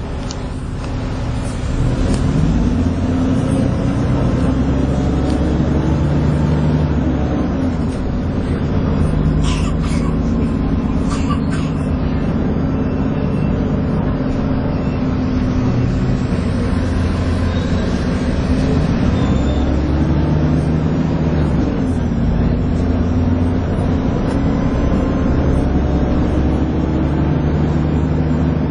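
Dennis Trident 2 double-decker bus with an Alexander Enviro 400 body, its engine running under way with the vacuum-cleaner-like whine that bus enthusiasts call 'hoovering'. The engine note rises and falls several times as it accelerates and changes gear, and there are a few brief clicks about ten seconds in.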